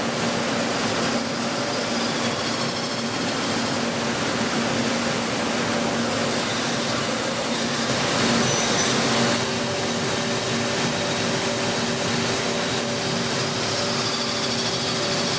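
CNC machine tool running: a steady mechanical hum with a few held tones and a hiss, swelling briefly about eight seconds in.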